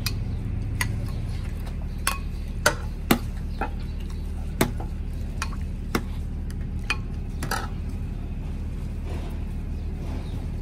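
Steel ladle clinking against a large metal cooking pot and a ceramic bowl as broth is ladled out, about ten sharp clinks spread unevenly over the first eight seconds. A steady low hum runs underneath.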